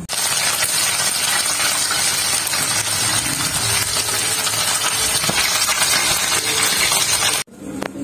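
Small uceng river fish deep-frying in hot oil in a frying pan: a steady crackling sizzle that cuts off suddenly near the end.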